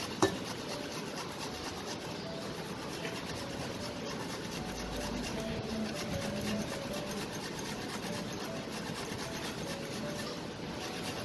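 Fresh ginger rasped back and forth over a stainless-steel hand grater in a continuous run of quick scraping strokes, with one sharp click just after the start.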